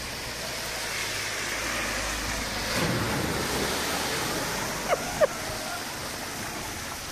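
Heavy rain pouring onto a flooded street while a car drives through the standing water, its tyres hissing and throwing up spray; the pass swells and is loudest about three seconds in. Two short sharp sounds follow about five seconds in.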